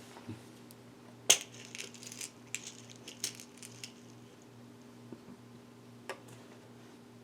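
Small metal screws clicking and clinking as they are picked out and handled: one sharp click about a second in, a quick flurry of lighter clicks for a couple of seconds, and a single click near the end.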